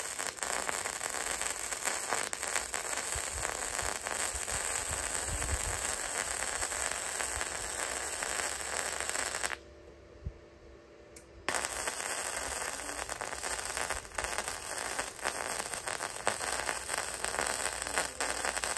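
MIG welding arc crackling steadily as a bead is laid on a cast iron wood burner. The arc stops about halfway through for roughly two seconds, then strikes again and crackles on.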